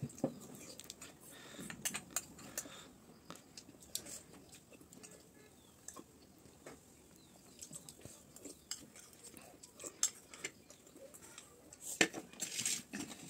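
Metal spoon clicking and scraping against a small ceramic bowl in scattered light strokes, with faint chewing. A louder burst of eating noise comes near the end as the spoon goes to the mouth.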